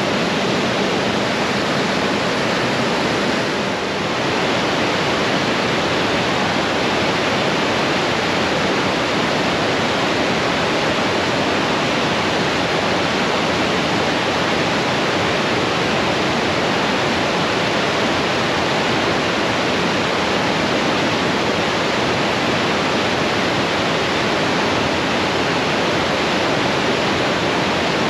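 Niagara River rapids rushing: a steady, loud whitewater noise that dips briefly about four seconds in.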